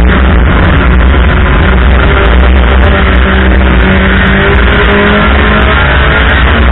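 Race car engines running hard at high revs, loud and steady, with an engine note that climbs slightly about three seconds in and fades near five seconds.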